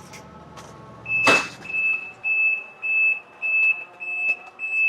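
Realme TechLife top-load washing machine's lid opened mid-spin: a knock about a second in, then the machine's safety alarm beeping, one high tone repeated a little under twice a second, as the spin stops.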